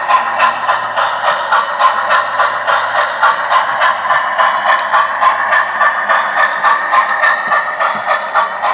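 Hornby Flying Scotsman OO-gauge model's TTS sound decoder playing steam-exhaust chuffs through its small onboard speaker, an even rhythm of about three chuffs a second as the locomotive runs round the track at speed.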